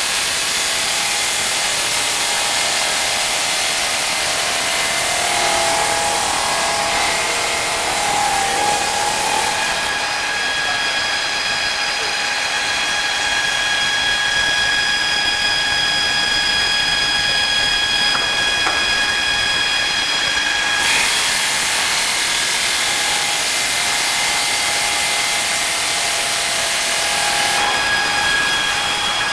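Water-cooled diamond saw blade of an automatic stone cross-cutter cutting through a granite slab: a steady grinding hiss with high whining tones from the spinning blade. The sound shifts abruptly a few times.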